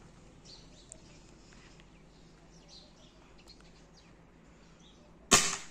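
A single shot from a Cometa 400 air rifle in 5.5 mm (.22) calibre near the end: one sharp crack that dies away quickly. Before it, faint bird chirps over a quiet background.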